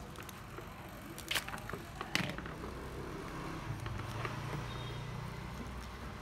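Two sharp knocks from handling a used Hitachi 12V cordless screwdriver, then, from about halfway through, its motor running with a steady low hum.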